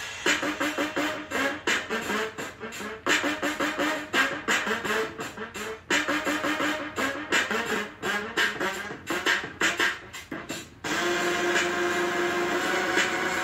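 Music with short, choppy pitched notes broken by frequent brief gaps; about eleven seconds in it switches abruptly to a steady held tone.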